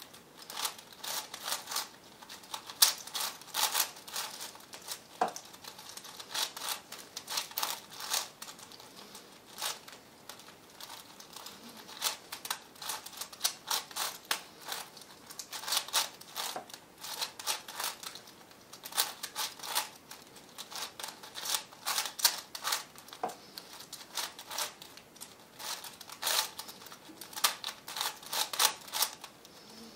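Plastic layers of a V-Cube 7 (7x7x7 puzzle cube) being turned by hand: fast runs of clicks and clacks as the layers twist, broken by short pauses.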